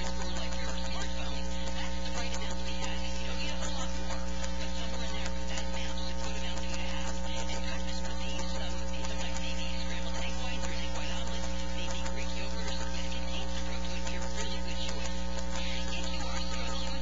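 Steady electrical mains hum and buzz with hiss. Several unchanging tones, the strongest very low, hold at one level without any change.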